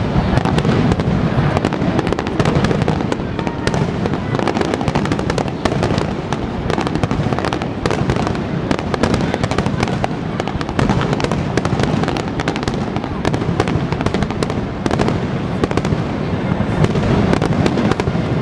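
Fireworks finale barrage: a dense, unbroken run of aerial shell bursts and crackling, with a low rumble underneath.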